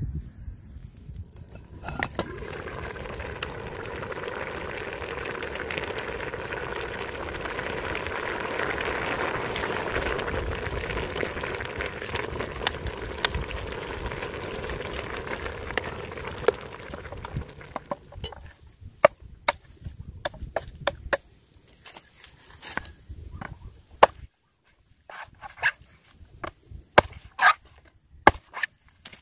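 A pot of young jackfruit stew in coconut milk simmering, a steady bubbling hiss that fades out after about fifteen seconds. Then a run of sharp, irregular chopping knocks: a bolo hacking at a green coconut.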